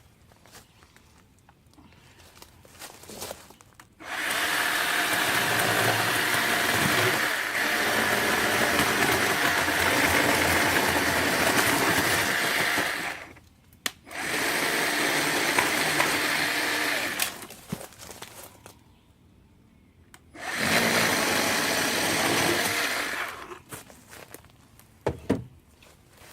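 WORX 40-volt battery-powered electric chainsaw running with a steady motor whine in three bursts: a long one of about nine seconds, then two of about three seconds each, as it cuts thick azalea trunks.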